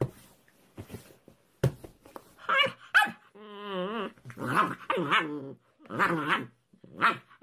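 A grey-and-white pit bull-type puppy gives a run of short growling barks and whines at the hand patting its head, starting about two seconds in, with one longer wavering call in the middle. Two sharp clicks come before it.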